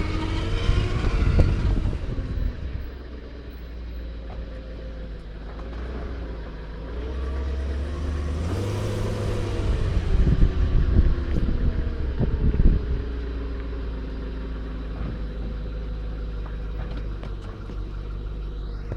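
BMW E34 engine idling with a whine, blipped up in revs and back down briefly near the start and again around the middle.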